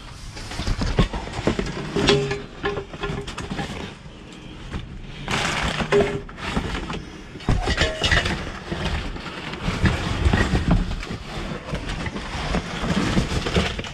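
Junk being rummaged through and handled in a dumpster: irregular knocks and clatter of objects being moved and set down, with stretches of rustling.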